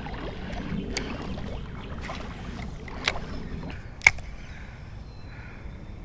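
Creek water sloshing and burbling around a wading angler, with a few sharp clicks, the loudest about four seconds in.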